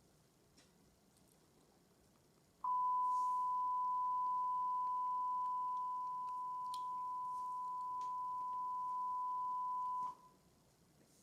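A single steady electronic alert tone of an Emergency Alert System broadcast, one unchanging high pitch held for about seven and a half seconds, starting a few seconds in and cutting off sharply near the end.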